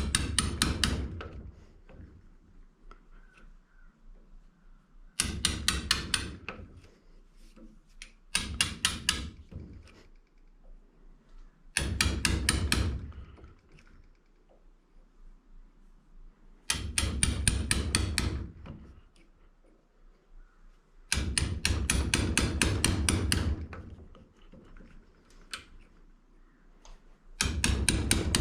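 A hammer drives a punch against an electric motor's copper windings, working around the motor to loosen them. The blows come in about six bursts of rapid metal-on-metal strikes, with short pauses between.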